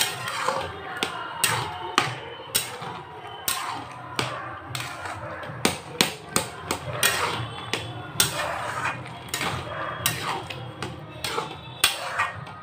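Metal spatula stirring grated carrots cooking in milk in a metal kadhai, knocking and scraping against the pan over and over at an uneven pace.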